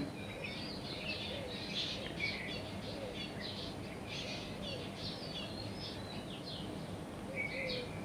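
Small birds chirping, many short high calls one after another over a faint hiss of background ambience.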